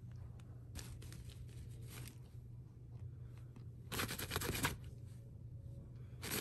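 Fabric of a cat tunnel rustling as a hand presses and pats it, in a few short bursts, the loudest about four seconds in. A steady low hum runs underneath.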